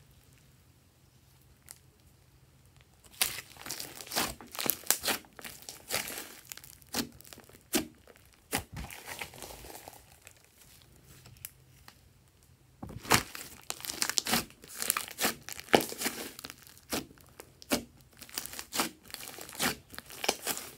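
Hands stretching and squeezing a large mass of glossy slime, making strings of sticky pops and clicks. The first few seconds are nearly quiet, and the popping thins out again briefly in the middle.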